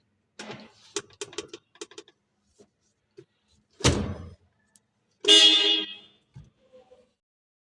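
A few light clicks, a thump, then one short car horn beep lasting under a second. It is the horn of a Suzuki Cultus that sounds only with the steering turned left, not straight or right, a fault in the steering-column horn contact.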